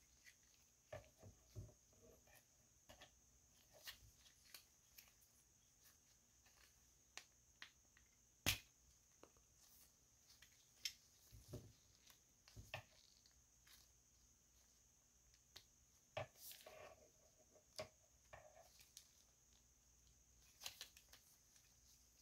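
Plastic parts of a Transformers Studio Series 86 Ratchet action figure clicking and knocking as they are folded and snapped into place by gloved hands. The clicks are scattered and irregular, the loudest about eight seconds in, with a brief stretch of rubbing a little past the middle.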